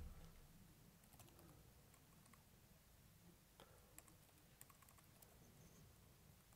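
Faint computer keyboard typing: a scattered run of soft keystrokes over a low steady hum.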